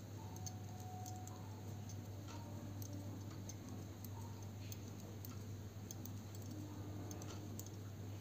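Faint, irregular light clicks of knitting needles tapping together as purl stitches are worked, over a steady low hum.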